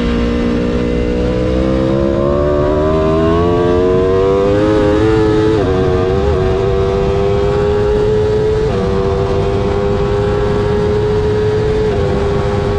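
Aprilia Tuono V4 X's V4 engine running at full throttle on track, heard onboard over heavy wind rush. Its pitch climbs steadily in third gear, then dips at quick upshifts about six seconds in and again near nine seconds in before holding high.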